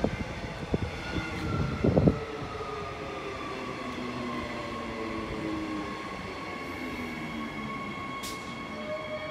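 Queensland Rail electric multiple-unit train pulling into the platform, its motor whine falling steadily in pitch as it slows to a stop. A few sharp knocks in the first two seconds.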